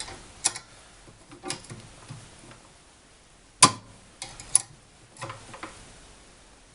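Scattered light metal clicks and taps of hand work on the saw's blade clamp as a nut and wing bolt are tightened, with one sharper click about three and a half seconds in.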